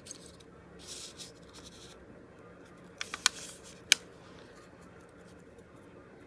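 Small metal binder clip being squeezed open with a few quick clicks about three seconds in, then snapping shut with a sharper click as it clamps the glued pages of a small paper journal. Soft rustling of paper and fabric being handled before it.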